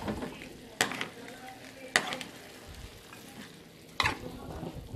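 Pork rib pieces frying in a pan with oil and leftover cooking water, a steady low sizzle. A spoon scrapes and knocks against the pan three times while stirring.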